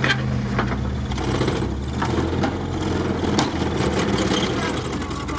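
Off-road vehicle's engine idling steadily, heard from inside the cab, with a few short knocks and rattles over it.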